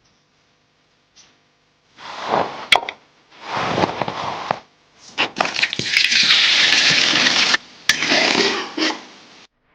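Several bursts of crackling, crunching noise with a few sharp snaps, starting about two seconds in.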